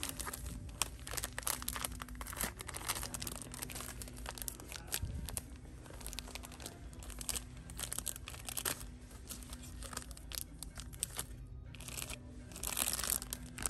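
Plastic bags of turmeric powder crinkling as they are picked up and handled, in many quick sharp crackles. A faint steady low hum runs underneath.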